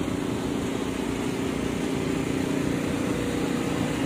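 An engine running steadily at constant speed, a drone of unchanging pitch and level.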